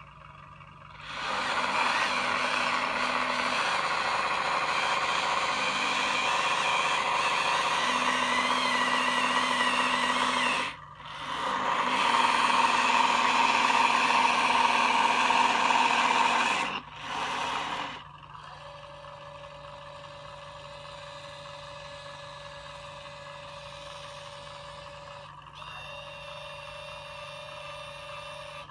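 Small electric drive motors and gearboxes of a motorized 1/35 scale Maus tank model whining as it drives, cutting out briefly near 11 s and again near 17 s. From about 18 s the sound drops to a quieter, steady motor whine with a single held tone.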